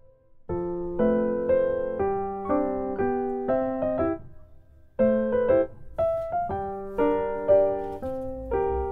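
Background piano music: chords and melody notes at a moderate, even pace, with a brief pause about halfway through.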